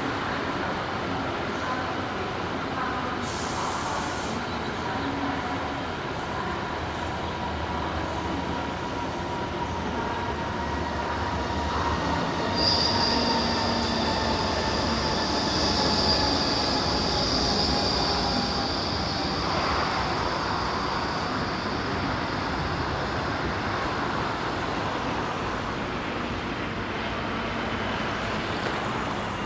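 Wheels of an arriving passenger train squealing over a steady rumble of rolling stock. A lower squeal slowly falls in pitch, and about twelve seconds in a loud high-pitched squeal cuts in and holds for several seconds. A brief hiss comes about three seconds in.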